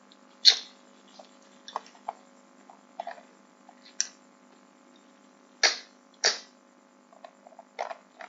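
Scattered sharp clicks, about a dozen at uneven intervals, the loudest about half a second in and a pair near the six-second mark, over a steady electrical hum.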